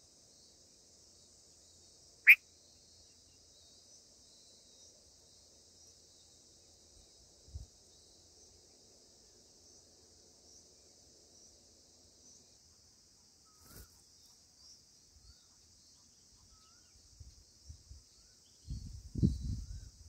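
Faint, steady high chirring of insects such as crickets. About two seconds in comes one short, sharp, loud high note, and near the end there are low rumbling bumps.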